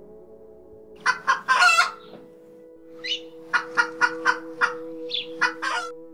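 Chickens clucking and squawking in short, loud calls: a cluster about a second in, then a run of rapid clucks from about three seconds until near the end. Steady background music with held notes plays underneath.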